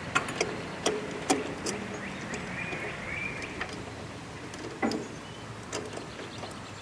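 Irregular sharp clicks and light knocks, about a dozen spread unevenly, of hand tools and a new spin-on oil filter being handled and threaded onto a small engine.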